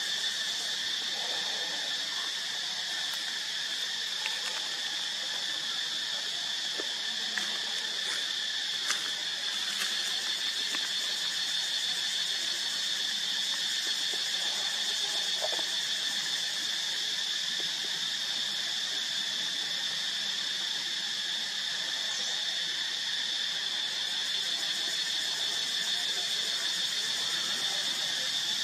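Continuous insect chorus, a steady high-pitched drone that doesn't let up, with a few faint ticks.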